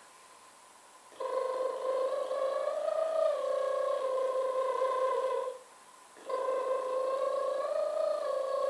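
Two long, steady pitched tones, each held about four seconds with a slight rise and fall in pitch partway through, separated by a short pause.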